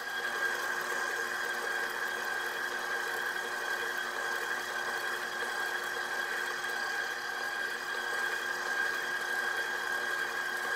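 KitchenAid stand mixer running steadily, its flat paddle beating cheesecake batter as the eggs are mixed in: an even motor hum with a steady high whine.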